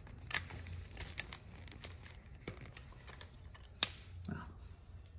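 Light clicks and rattles of the throttle cable ends and fittings being worked free of a Harley Sportster 883's carburetor, with a sharper click about four seconds in. A steady low hum runs underneath.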